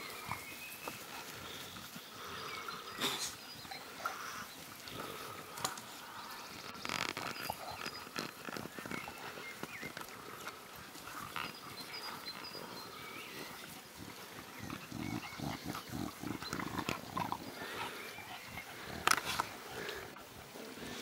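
Staffordshire bull terrier puppies making small growls and grunts as they play-fight in long grass, with a run of quick grunts a little past the middle.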